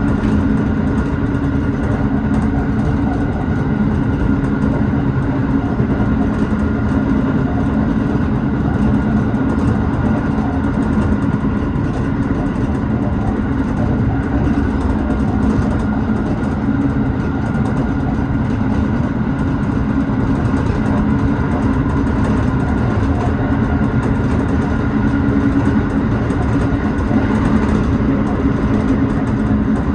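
Tobu 6050 series electric train running at speed, heard from inside the front car: a steady running and rolling noise with a low hum and a faint, steady high whine.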